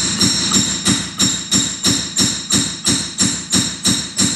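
Hammer blows striking the end of a 1987 Toyota Corolla FX16 CV axle, tapping the joint onto the shaft splines to seat it past its retaining clip. The blows are steady and even, about three a second, each one a sharp knock with a brief metallic ring.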